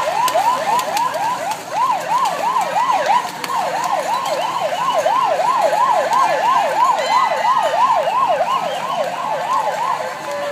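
Electronic siren in a fast yelp, sweeping up and down in pitch about three times a second and stopping about ten seconds in.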